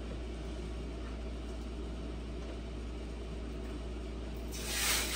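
Steady low background hum, then about four and a half seconds in a loud rustling rush as protective plastic film is peeled off the side panel of an Artillery M1 Pro 3D printer.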